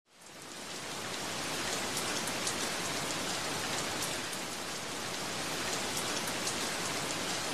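Steady rain: an even hiss with many small drop ticks, fading in over the first second.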